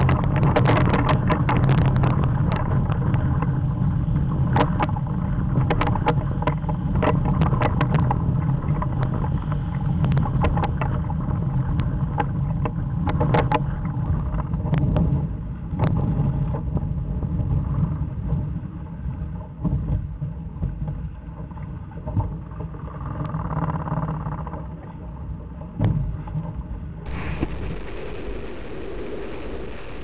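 Strong wind buffeting the microphone of a camera on a Laser dinghy sailing in gusty, choppy water, with frequent sharp splashes and knocks of spray and hull on waves through the first half. Near the end it changes to a steadier hiss of rushing water and wind.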